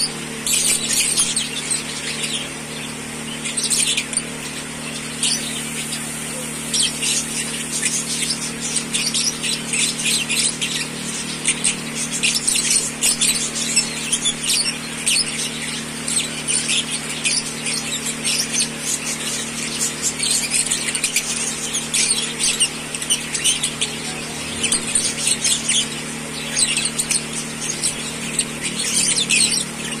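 Fischer's lovebirds chirping and chattering in rapid, high, short calls that keep up throughout, over a steady low hum.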